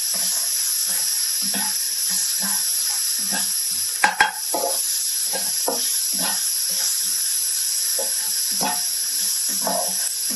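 Chopped onion and garlic sizzling in hot oil in a wok, a spatula scraping and stirring them around the pan in quick repeated strokes. Two sharp knocks about four seconds in.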